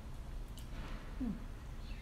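A woman's brief closed-mouth hum, falling in pitch, about a second in, as she eats a calamansi, over a low steady background rumble.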